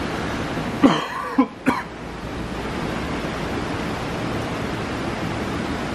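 Heavy rain pouring steadily. About a second in, a brief cough-like human vocal sound breaks through in three quick bursts.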